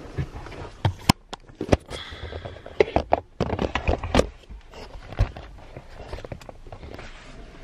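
Irregular sharp clicks and knocks with some rustling, thickest in the first five seconds and then dying down: handling noise as the camera is moved about inside a car cabin.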